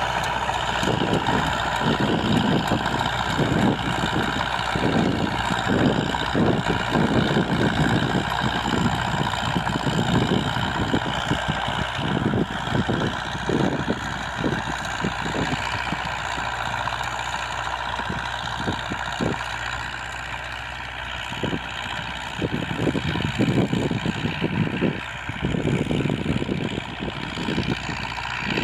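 Tracked tractor's engine running steadily under load while it drives a rotary tiller through dry soil, with an uneven low rumble surging and easing underneath.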